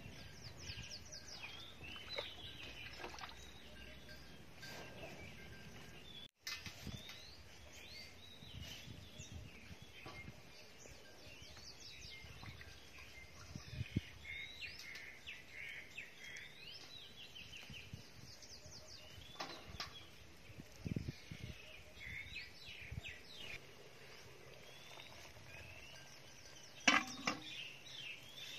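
Several small birds chirping and calling over a steady background hiss, with a few scattered knocks. The loudest knock comes near the end, and the sound drops out for an instant about six seconds in.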